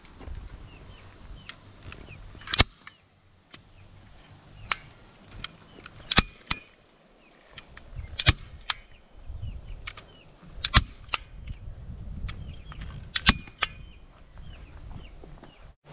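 Hand-squeezed manual staple gun driving staples through chicken wire into a log post: a series of sharp snaps, six loud ones roughly every two seconds with softer clicks between.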